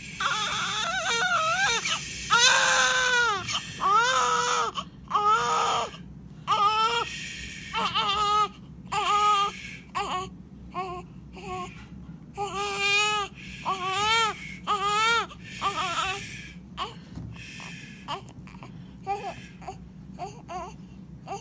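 Newborn baby crying: a long run of high-pitched wails, each a second or less, that grow shorter and weaker near the end into brief whimpers.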